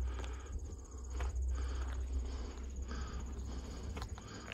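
Insects chirping steadily in a high, rapidly pulsing trill, over a low rumble, with a few soft knocks or steps.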